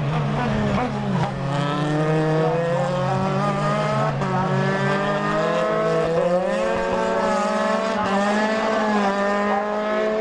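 Several Dallara Formula 3 racing cars' engines overlapping as they accelerate hard. Their pitch climbs again and again as they shift up through the gears.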